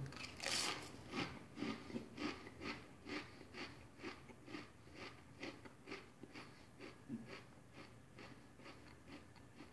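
A mouthful of Pringles crisps being chewed: faint, regular crunching about twice a second, growing softer as the chewing goes on.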